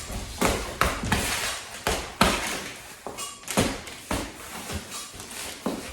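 Irregular knocks and thumps, about ten in six seconds, as a plant pot is squeezed and tapped by hand to loosen the root ball of a pot-bound bird of paradise.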